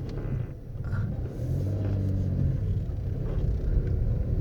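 Car driving off: engine running with low road rumble, growing louder about a second in.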